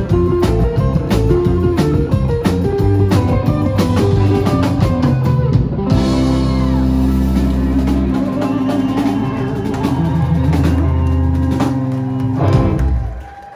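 Live rockabilly band playing: upright bass, hollow-body electric guitars and drum kit driving a steady beat. About six seconds in, the band breaks onto a long held, ringing chord, which ends with a final hit and stops shortly before the end.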